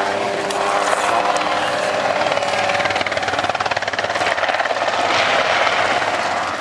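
Small two-blade ultralight helicopter flying low and banking past, its engine buzzing steadily under a fast, even rotor chop.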